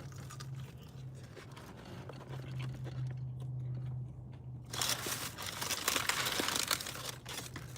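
Crispy fried chicken skin being torn and bitten close to the microphone, with a loud burst of crunching and crackling over the last few seconds. A low steady hum runs underneath.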